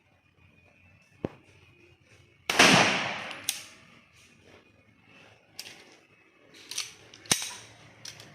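A 9mm pistol fires one loud shot about two and a half seconds in, with a ringing tail that fades over about a second. Several short, sharp metallic clicks come before and after it.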